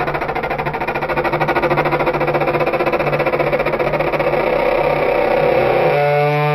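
Creature sound effect for a polar elephant: a low, fast, even rattling growl over a steady hum, which about six seconds in smooths into a held, steady pitched call.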